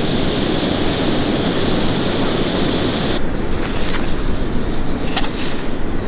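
Backpacking canister stove burning with a steady roar; its hiss drops a little about three seconds in. Twice near the end, a short crunch as a pot scoops up snow to melt.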